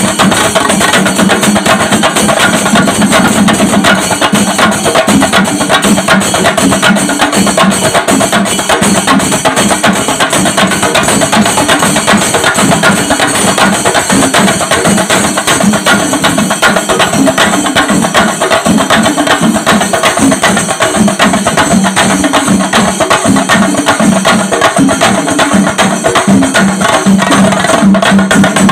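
A troupe of chenda drums beaten together with sticks: a loud, dense, driving rhythm of stick strokes that keeps going without a break.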